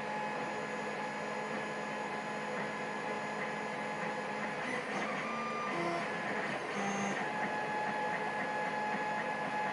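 Steady mechanical whirring with a constant hum running under it, with no distinct clicks or knocks.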